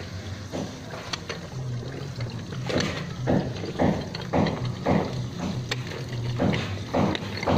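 Water splashing in a flooded pit as hands work in it. There is a run of short splashes about twice a second, starting about three seconds in.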